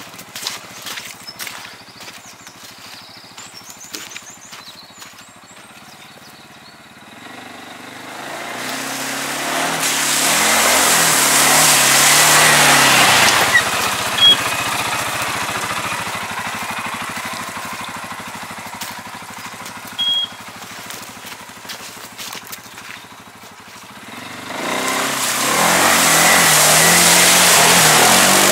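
ATV engine revving hard under load: it climbs about seven seconds in, eases to a steadier run, then revs hard again near the end. A few light knocks and clicks come before the engine rises.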